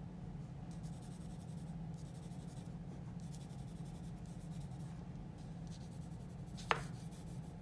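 Graphite pencil scratching on drawing paper in a run of strokes with short pauses between them. There is a sharp tap about a second before the end.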